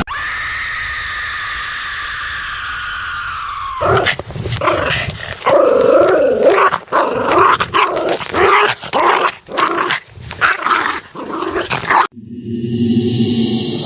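A held, wailing tone that sinks slowly in pitch, then about eight seconds of dogs snarling, growling and barking in an irregular rush. Near the end it cuts off abruptly and a steady chanting drone with a gong begins, used as a horror sound effect.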